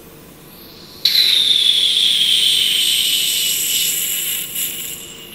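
Vacuum aspirator sucking supernatant and air through a pipette tip: a hiss with a high whistle that starts abruptly about a second in, slowly falls in pitch, and fades near the end.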